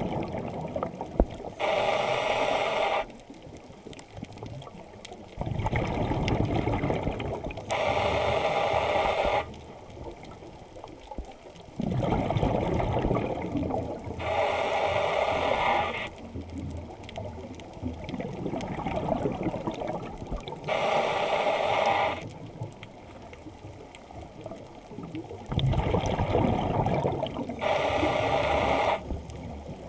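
Scuba diver breathing through a demand regulator underwater: a hissing inhale through the regulator, then a bubbling exhale, repeating evenly about five times, roughly one breath every six seconds.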